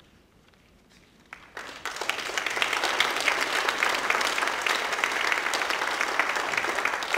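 A congregation applauding: after a second and a half of quiet, clapping breaks out, swells and holds steady.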